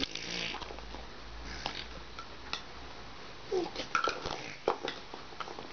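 Infant making short vocal sounds, one at the start and a falling one about three and a half seconds in, with a few light clicks of plastic toy fruit being picked up and knocked together.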